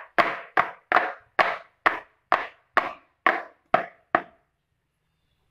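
Batter-filled metal muffin pan being knocked down on a countertop about twice a second, some ten times, each knock ringing briefly; the tapping levels the batter in the cups. The knocking stops about four seconds in.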